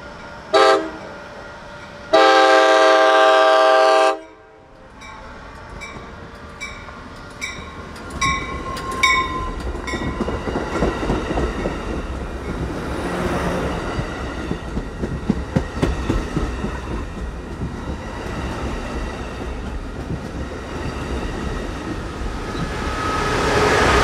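A passenger locomotive's multi-tone air horn gives a short blast and then a long blast of about two seconds, the end of its grade-crossing signal. The train then passes: its wheels click over rail joints about twice a second, and this gives way to a steady rumble of the passing cars.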